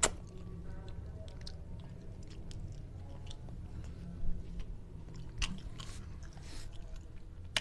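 Close-up chewing and sucking on a tilapia head cooked in gulai curry: wet mouth clicks and smacks, with a few sharper clicks about four and five and a half seconds in.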